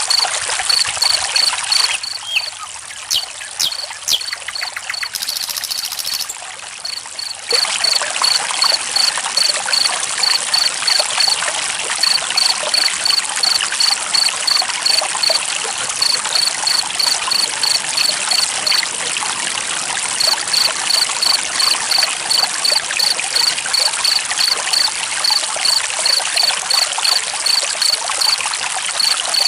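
Running water trickling and splashing steadily, with a cricket chirping in a regular high-pitched series of a few chirps a second that pauses briefly now and then. The sound is quieter and changes character for a few seconds about two seconds in.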